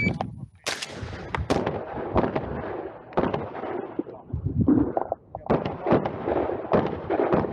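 Semi-automatic 12-gauge Benelli M2 SP shotgun firing a rapid string of buckshot rounds, starting under a second in. The shots come roughly a third to half a second apart, broken by a few short pauses, and each one rings out afterwards.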